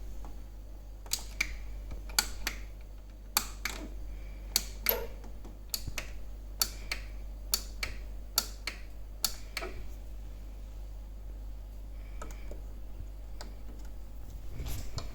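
Sharp clicks and taps from a top-loading Whirlpool washing machine being handled: about a dozen irregularly spaced clicks in the first ten seconds, then a few fainter ones, over a low steady hum.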